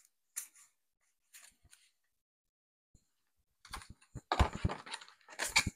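Trading cards being handled: a few faint flicks and clicks, then, a little past halfway, about two seconds of louder rustling and tapping as the cards are shuffled through.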